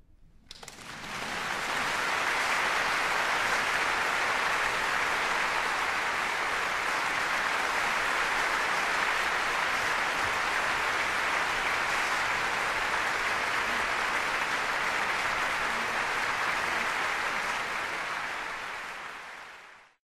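Concert audience applauding, breaking out about half a second in and swelling within a second to steady, dense clapping, then fading out near the end.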